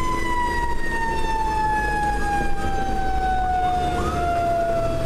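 Federal Q mechanical siren winding down, its wail falling slowly and steadily in pitch, heard from inside the fire engine's cab over the truck engine's low rumble.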